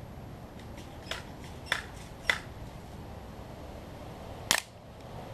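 A BB gun firing at a clay pot: a series of short, sharp clicks and snaps. The clearest come about one, one and three-quarters and two and a quarter seconds in, and the loudest, crisper crack comes about four and a half seconds in.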